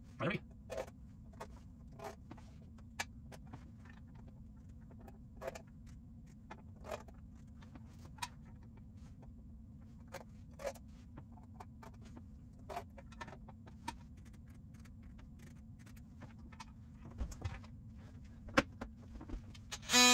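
Scattered light clicks and taps of an electrical box being held against the ceiling while its outline is marked for cutting, over a low steady background hum.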